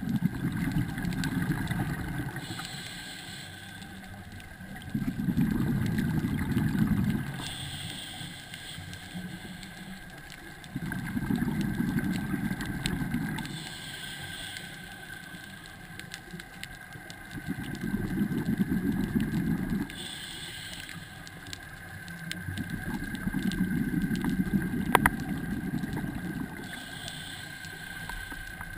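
Scuba diver breathing through a regulator underwater. Five times, a rumble of exhaled bubbles lasting about two seconds alternates with a shorter, higher hiss of inhalation through the regulator, about every six seconds. A faint steady whine runs underneath.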